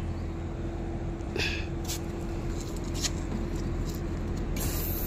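Lloyd inverter split AC outdoor unit running with a steady hum while a hex key clicks against its brass service valve. Near the end a hiss rises as the valve is opened and refrigerant starts to flow.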